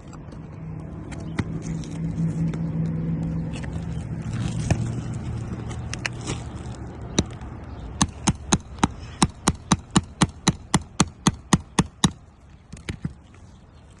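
A quick, even run of sharp metal taps, about four or five a second for some four seconds in the second half: a hammer tapping a flat pry bar to work roofing nails loose under a shingle. Before it, a low engine hum swells and fades, as of a vehicle going by.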